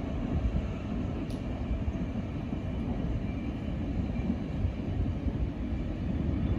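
CN 273, a Canadian National freight train, rolling past with a steady low rumble.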